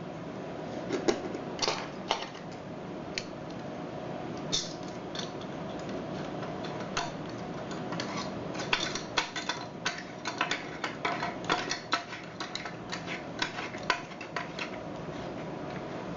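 Small metal lock parts clicking and clinking as a knob lock is assembled by hand: irregular light taps and clicks, thickest in the middle stretch.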